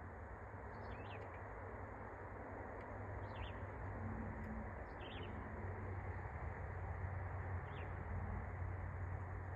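Four short bird chirps, spaced a couple of seconds apart, over a steady background of low noise and hum.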